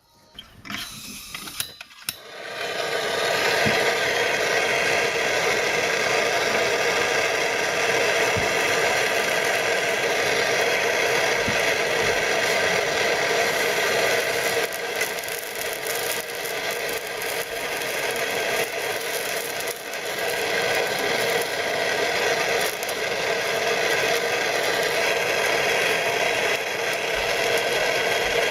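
Handheld propane torch burning with a steady hissing rush of flame while copper pipe joints on a shower valve are soldered, starting about two seconds in after a few short clicks.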